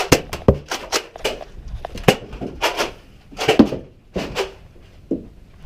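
Nerf blasters firing and foam darts striking, heard as irregular sharp clacks and knocks, sometimes several a second, with a short hissing burst about three and a half seconds in.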